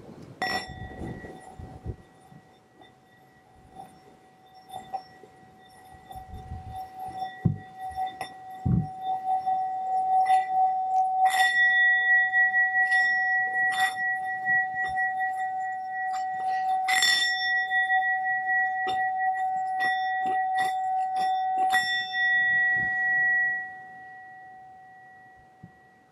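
Singing bowl struck once, then rubbed around its rim so that one ringing note swells louder and holds, with small clicks of the mallet against the rim. The note dies away near the end.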